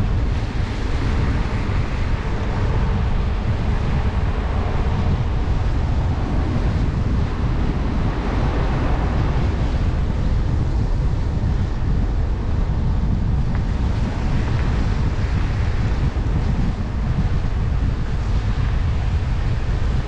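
Steady rumble of a car driving along a road, with tyre and road noise mixed with wind buffeting the camera's microphone.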